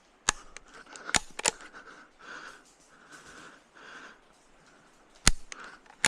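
Several sharp clicks and knocks at irregular intervals, the loudest about five seconds in.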